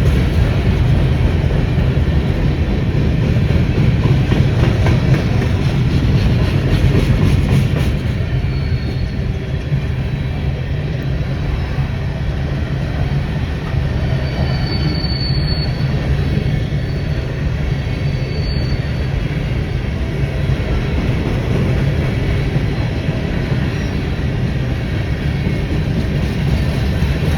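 BNSF freight train rolling past with a steady low rumble of wheels on rail. Brief high wheel squeals come through a few times, the longest just past the middle.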